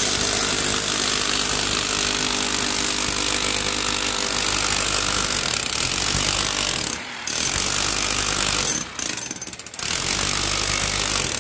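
Hand-held electric demolition hammer with a pointed chisel bit hammering into brick and concrete masonry, stopping briefly about seven seconds in and easing off again around nine seconds before picking back up.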